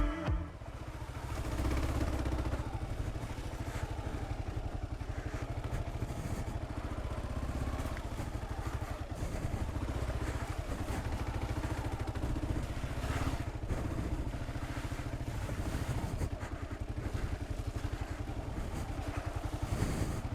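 Single-cylinder dual-sport motorcycle engine running steadily while riding a trail, with a few clattering knocks about two-thirds of the way through.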